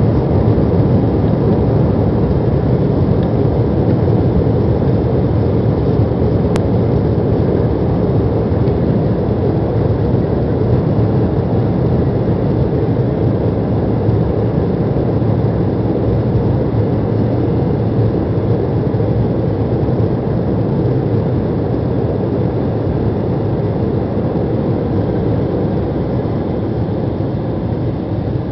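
Embraer E195 airliner's turbofan engines at takeoff power, heard inside the cabin over the wing as a loud, steady low rush during the takeoff roll, easing slightly near the end.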